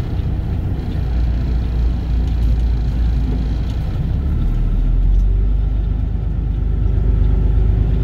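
Tractor-trailer's diesel engine running at low speed, heard from inside the cab as a steady low rumble, with a change in the engine note about four seconds in.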